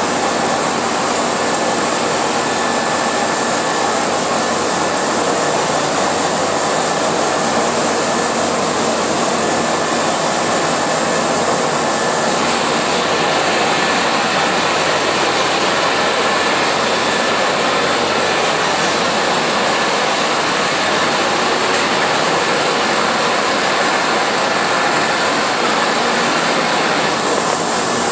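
HFT-1300 five-roller solventless silicone coating machine running: a steady, loud mechanical rush from its rollers and drives, with a faint steady whine. The high hiss thins out about midway and comes back near the end.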